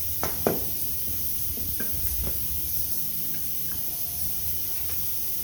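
A few sharp knocks, the loudest about half a second in, over a steady hiss: tools and parts being handled during engine teardown.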